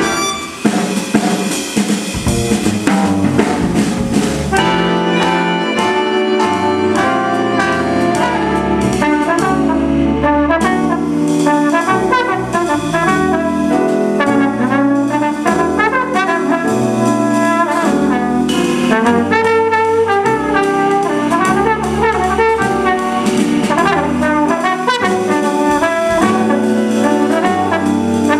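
Jazz big band playing, with a trombone carrying the lead over the saxophone section, drum kit and double bass. The drums and cymbals hit hardest in the first few seconds before the melody settles in.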